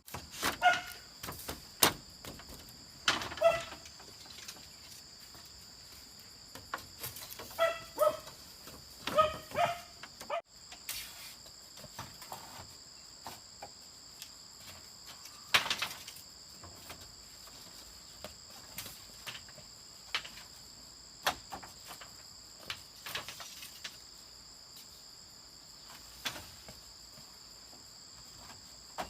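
Insects droning steadily at a high, even pitch, with scattered sharp knocks and clicks over it, several in the first ten seconds giving a short ringing tone.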